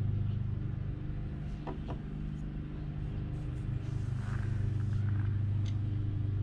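A steady low machine hum, with a few light clicks about two seconds in and a short rustle about four seconds in as a new spark plug is handled.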